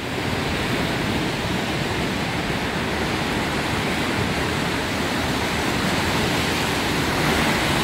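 Steady rushing noise of wind and sea surf, even and unbroken, stepping up slightly at the start.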